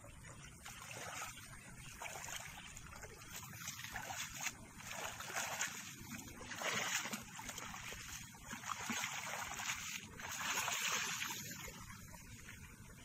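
Water sloshing and splashing as a person wades through waist-deep water gathering in a wet cast net, with water streaming off the mesh. It comes in several swells, one every second or two, and dies down near the end as he reaches the bank.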